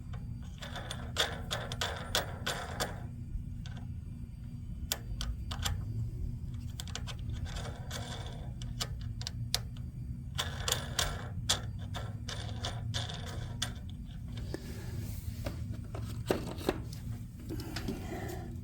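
Ratchet wrench clicking in four or five bursts of rapid clicks, a second or three each, as a 10 mm socket is worked on nuts. A steady low hum runs underneath.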